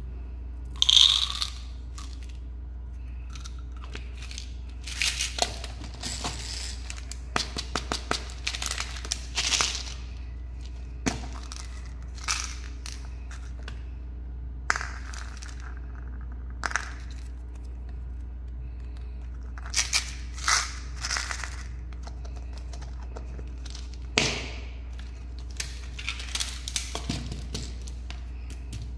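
Hands handling small sugar-coated chocolate candies and plastic candy containers: irregular clicks, rattles and crinkles, with a sharper clatter about a second in. A steady low hum runs underneath.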